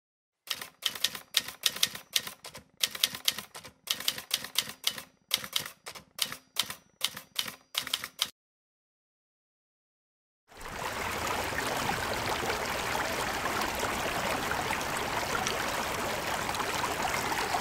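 Typewriter keys clacking in quick irregular runs for about eight seconds. After a pause of about two seconds, a quieter steady rush of flowing water begins and carries on.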